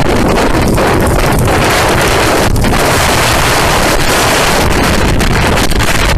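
Loud, steady wind rushing over the microphone of a motorcycle riding at road speed, drowning out the engine.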